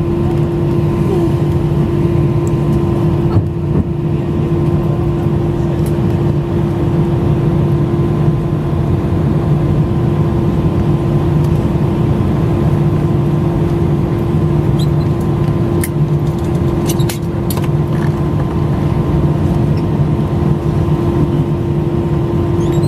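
Steady cabin hum inside an Airbus A320-family airliner after landing: the engines and air conditioning make a constant drone with a steady whine in it. A few faint clicks come about two-thirds of the way through.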